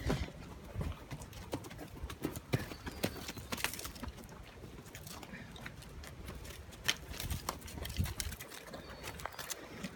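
Horses moving close by: scattered soft clicks and low thumps.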